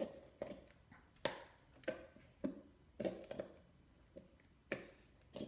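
Glue bottle being squeezed, sputtering out a series of short sticky pops, about two a second.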